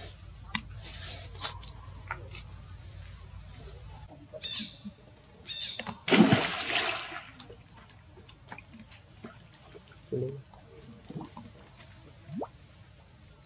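Water splashing and dripping, with one loud splash lasting about a second around the middle, amid scattered small clicks and ticks.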